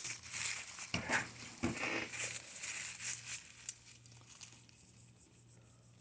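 Paper crinkling and rustling as it is handled, in several short bursts, with a sharp click at the start. It dies away about halfway through, leaving a faint low hum.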